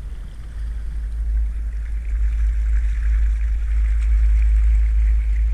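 Wind buffeting the microphone in a steady low rumble, over water lapping and splashing against the hull of a small open boat; the splashing hiss grows from about two seconds in.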